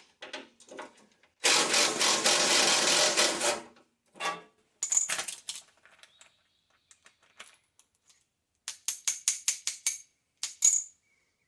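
Metal clicking and clinking from hand tools and loose bolts during fender-pan removal on a garden tractor. A dense rattling burst lasts about two seconds near the start. Later comes a quick run of ringing metallic clicks, about six a second.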